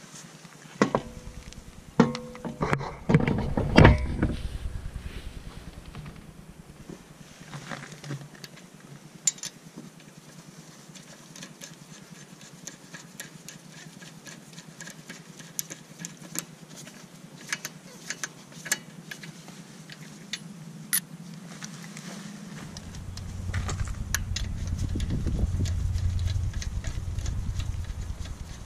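Alloy wheel clanking onto the hub and studs a few times in the first seconds, then light irregular metallic clicks as lug nuts are run onto the studs with a socket and extension. A low rumble comes in near the end.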